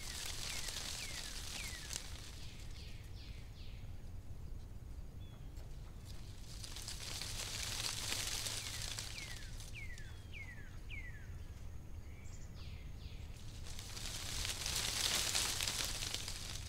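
Countryside ambience: a bird calls in short runs of four or five quick downward-sliding whistled notes, twice. Underneath run a low steady rumble and high hissing swells that build and fade three times.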